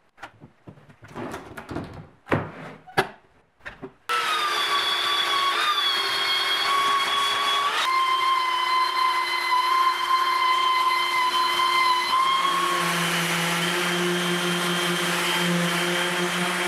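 A few knocks and handling clatter, then an electric palm orbital sander starts about four seconds in and runs steadily with a high whine, sanding the epoxy-and-oak surface. Its tone changes twice while it runs.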